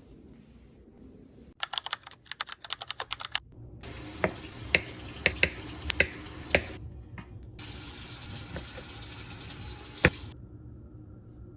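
A quick run of about a dozen clicks, then steady running water with several sharp knocks and clinks in it, cutting off abruptly near the end.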